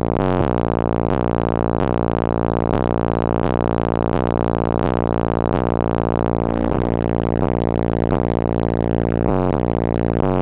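Bass-heavy music played loud through a car audio system's 18-inch subwoofers: deep bass notes in a steady beat, changing pitch every fraction of a second, with little treble.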